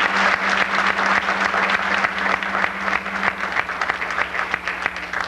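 A banquet audience applauding: a dense round of many hands clapping that thins out and tapers off near the end.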